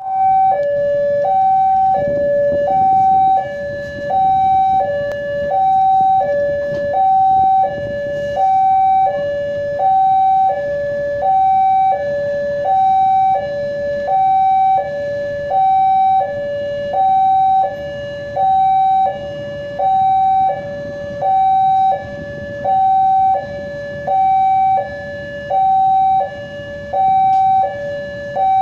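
Railway level-crossing warning alarm sounding from its loudspeaker units: an electronic two-tone hi-lo tone, high and low notes alternating evenly, about one high note every one and a half seconds. It warns that a train is approaching the crossing.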